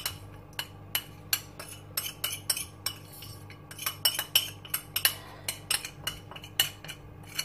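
Irregular sharp crackles and clicks, several a second, as yogurt-marinated chicken tikka is worked out of a plastic bag into a pan of hot oil.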